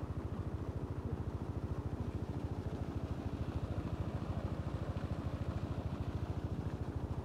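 A small engine running steadily at an even speed, with a fast, regular beat.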